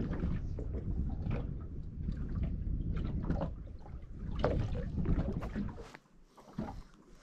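Wind rumbling on the microphone aboard a small aluminium boat, with water slapping and knocking against the hull in short irregular knocks. The low rumble drops away about six seconds in.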